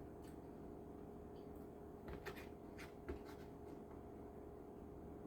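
Quiet room tone: a steady low hum, with a few faint light clicks about two and three seconds in.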